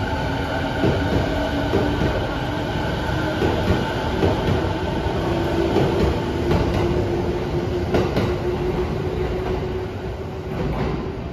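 JR East B.B.BASE electric train, a converted 209 series set, running past along the platform. Its wheels clatter over the rail joints under a steady rumble, with a steady motor whine.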